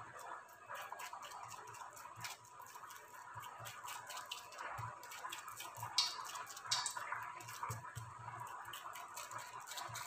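Faint, irregular crackle of an anarsa frying in oil on a low flame, mixed with soft rustling and patting as rice-flour dough is pressed out by hand on a plastic sheet.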